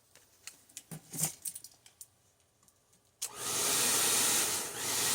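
A few light handling clicks and rustles, then about three seconds in an Annlary ionic hair dryer switches on and runs with a steady blowing hiss, dipping briefly about a second and a half later.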